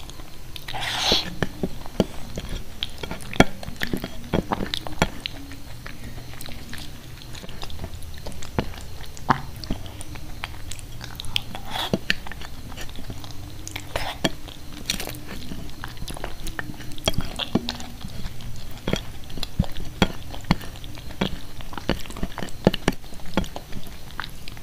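Close-miked chewing of soft khichdi eaten by hand: a steady run of wet mouth clicks and lip smacks, with a few louder smacks about a second in and around the middle.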